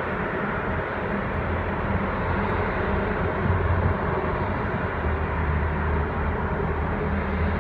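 Steady low engine drone under a broad, even rumble, from a small tanker ship passing on the river and city traffic along the waterfront.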